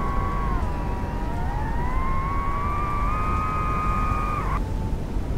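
DJI FPV quadcopter's motors and propellers whining in flight: several close pitches that dip and then climb, over a steady low rush of air. The whine cuts off suddenly about four and a half seconds in.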